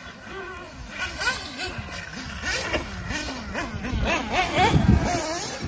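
Radio-controlled off-road buggies racing, their motors whining up and down in pitch as they are throttled on and off. The loudest, closest pass comes about four to five seconds in.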